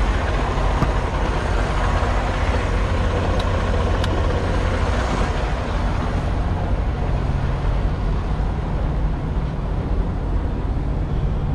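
Semi truck's diesel engine running steadily under way, with constant road and tyre noise.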